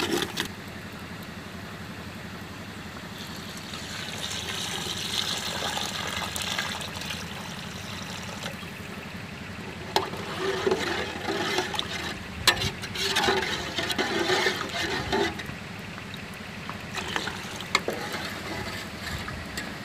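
Water poured into a large aluminium cooking pot of tomato masala, running for a few seconds, then a ladle stirring and scraping through the liquid with metal clinks against the pot.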